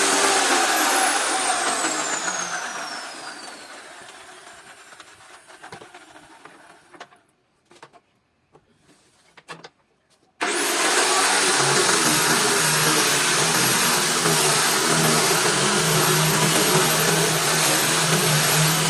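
A woodworking power tool's motor is switched off and winds down, its high whine falling over about four seconds, followed by a few light knocks. About ten seconds in it is switched on again, its whine rising quickly, and it runs steadily.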